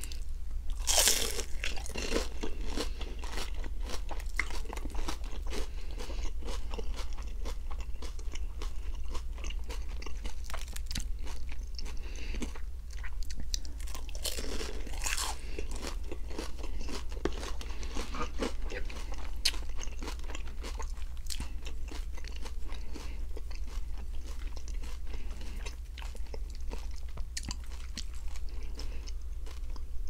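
Crunching bites into a crispy fried spring roll dipped in orange sauce, then crunchy chewing. The loudest bite comes about a second in, and more loud crunches follow around the middle.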